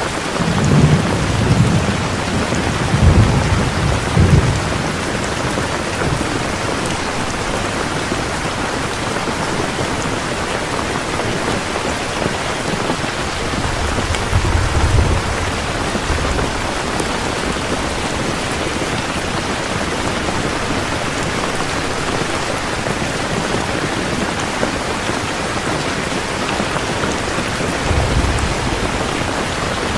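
Heavy rain pouring steadily, with low rolls of thunder rumbling near the start, about halfway through and again near the end.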